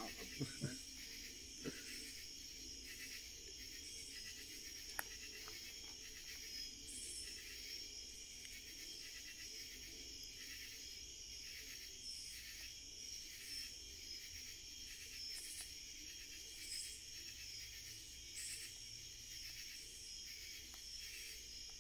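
A steady, high chorus of night insects trilling, with pulsed calls repeating above it. A few sharp crackles from the burning logs of the wood fire come in the first few seconds, the last about five seconds in.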